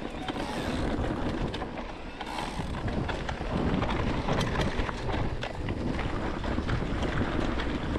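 Electric mountain bike riding over a rough dirt trail: tyres rolling on loose stones, with many small clicks and knocks from the bike, under wind on the microphone.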